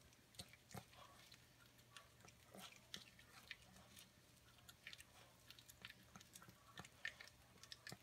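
Pomeranian gnawing kernels off a corn cob: faint, irregular small crunches and mouth clicks.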